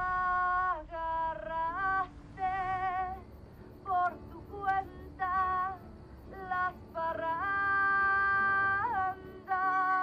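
Background music: a slow, wordless-seeming melody in a high voice or instrument, with vibrato, in short phrases and a long held note in the second half, over soft accompaniment.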